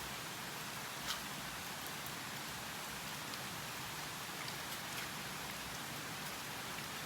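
Steady hiss with a few faint short clicks.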